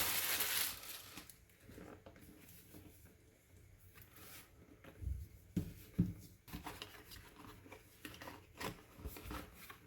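Product packaging being opened by hand: a loud tearing, crinkling rustle for about the first second, then faint rustling and scattered small clicks of box and contents being handled.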